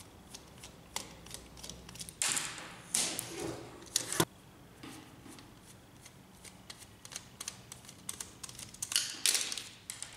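Screwdriver clicking and scraping as screws are backed out of a plastic laser-printer fuser unit, mixed with knocks and rubbing of the plastic housing being handled. Louder scraping bursts come about two to four seconds in and again near the end.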